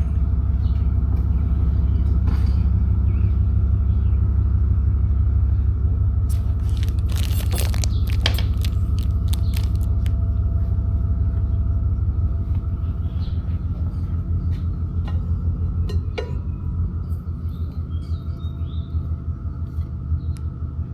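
Low, steady rumble of a car on the move, like cabin and road noise, with a short clatter about a third of the way in. The rumble eases off in the second half, as if the car is slowing.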